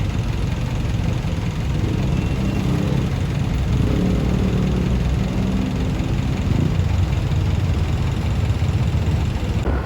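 Steady, loud, low mechanical rumble, like an engine running.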